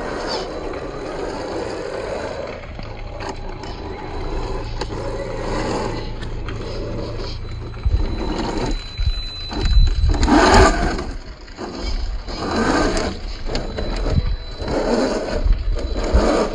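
1/10-scale RC rock crawler's 35-turn 540 brushed motor and geared drivetrain whirring as it climbs, with tyres scraping over rock. From about the middle on it comes in irregular louder surges of throttle.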